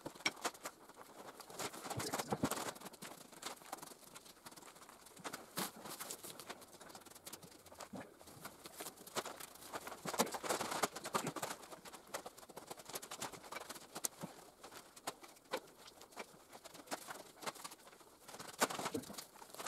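Deer hide being pulled off a hanging carcass by hand: irregular tearing and scraping noises with scattered clicks, louder bursts about two seconds in, around the middle and near the end.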